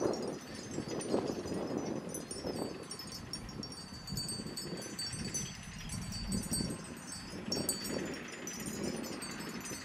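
Small bells tinkling and jingling irregularly, in light scattered clusters, over an uneven low background noise.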